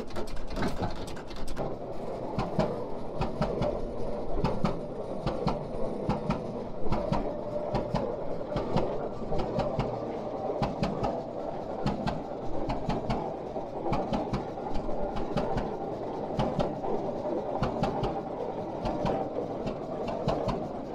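Engine of a 1913 J. I. Case 30-60 tractor running slowly, a steady rumble with a regular clatter of sharp clicks from its exposed valve gear.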